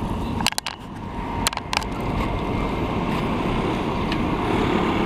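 Strong wind buffeting the microphone, a steady rumbling noise, broken by a few sharp clicks and brief drop-outs about half a second and a second and a half in.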